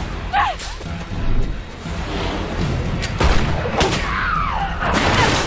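Trailer score with a steady low drone, cut through by sharp impact hits and bangs, the loudest about three seconds in. A falling high sound follows near the end.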